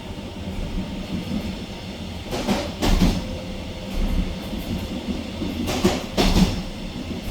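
Wheels of a Nuriro electric multiple unit passing over rail joints, heard inside the carriage. There are two double clacks, one about two and a half seconds in and one about six seconds in, over a steady rolling rumble.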